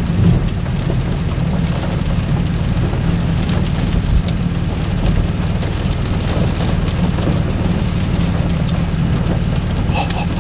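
Steady thunderstorm noise: rain and wind, with a constant low rumble underneath.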